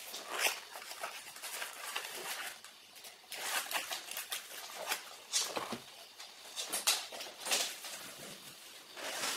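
Cardboard box and packing material rustling and scraping in irregular bursts as hands rummage inside the box, with no steady tone.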